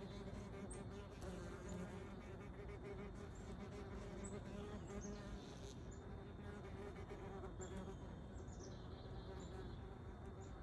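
A wasp buzzing its wings at close range while standing on a knit sleeve: a steady low hum that weakens in the second half. Short high chirps come and go in the background.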